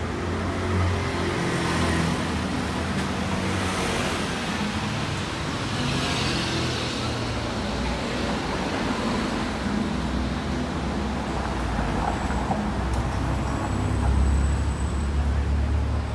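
City street traffic noise: vehicle engines run with a steady low hum. A vehicle swells past about six seconds in.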